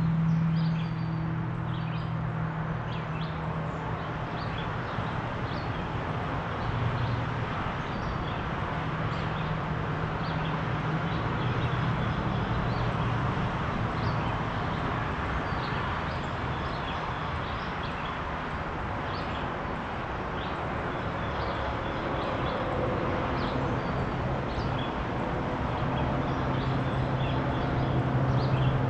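Steady rush of highway traffic with a low engine hum that swells near the start and again near the end, and small birds chirping repeatedly over it.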